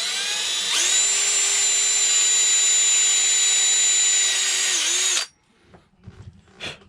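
Small Skil cordless drill boring a screw hole into wood: the motor spins up within about a second, runs with a steady whine for about four seconds, dips briefly near the end, then stops.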